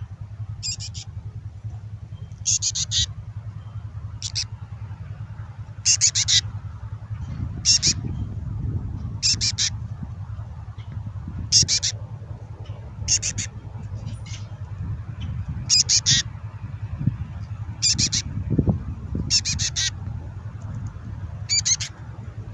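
Female black-capped chickadee giving the raspy begging call of a fledgling, short harsh calls repeated every second or two; females beg like this before nesting season. A low steady rumble runs underneath.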